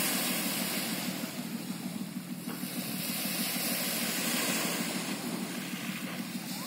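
Small waves washing onto a sandy beach, with wind buffeting the microphone: a steady rushing hiss that swells gently and eases.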